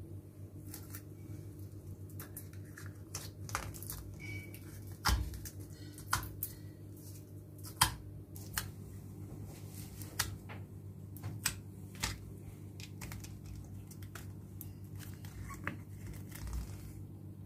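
Clear glittery slime being poked, pressed and squished by fingers in a plastic cup, giving a scatter of small sharp clicks and pops, two of them louder about five and eight seconds in. A steady low hum runs underneath.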